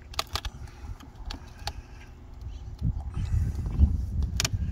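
A few sharp clicks and knocks, then a low rumbling from about three seconds in.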